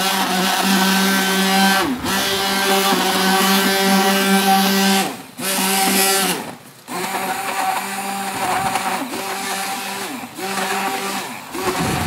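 Handheld stick mixer (immersion blender) running in a bucket of bar laundry soap and hot water, churning it into liquid soap. Its motor runs with a steady whine, and several times its pitch falls and it nearly stops before speeding up again.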